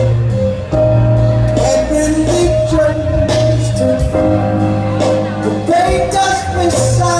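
Live band music in a large hall: a male voice singing over sustained bass and keyboard-like chords, with cymbal strikes.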